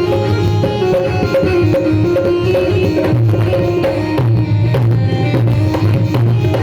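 Music played on a Roland Fantom-X6 keyboard workstation: a melody line of quick notes over a steady, dense percussion rhythm.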